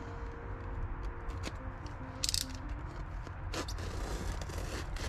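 Soft scraping and rustling as a length of sound-deadening mat is cut from a roll, with a short crackle a little past two seconds in and a click at about three and a half seconds.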